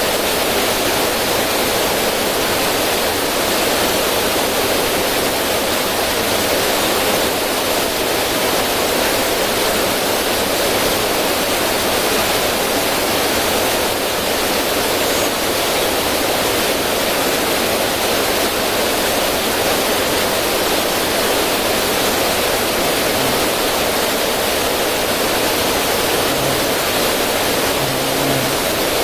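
River current rushing over rocks in a small cascade: a steady, even rush of water.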